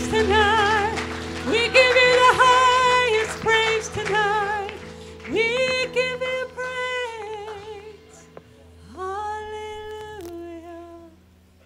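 A woman sings long, held phrases with vibrato over a worship band's sustained keyboard chords. The music dies away toward the end.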